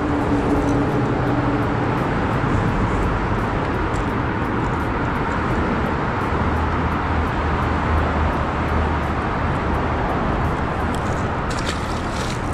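Steady drone of road traffic on the highway bridge overhead, with a deeper rumble from a passing heavy vehicle about halfway through. A short splash comes near the end as the released shad drops back into the water.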